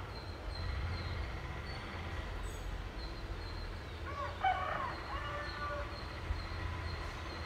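Steady low rumble of distant road traffic, with a faint high chirp repeating about two or three times a second and a short bird call about four seconds in.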